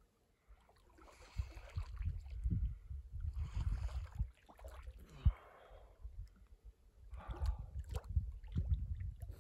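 A person swimming and splashing in water: two long bouts of splashing and sloshing with a deep rumble on the microphone, and a single thump about five seconds in.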